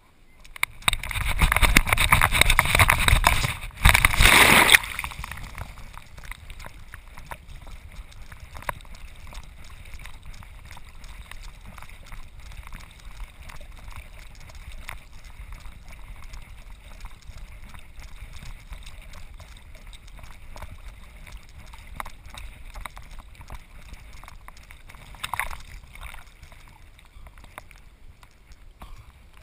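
A dog carrying a back-mounted action camera on her life vest runs and leaps into a lake: a loud rushing noise ends in a splash about five seconds in. Then she swims, with water sloshing, gurgling and lapping close against the camera and small splashes from her paddling.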